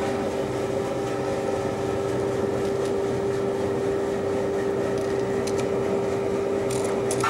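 Steady mechanical hum with one constant tone, like a machine or fan running, and a few faint clicks near the end.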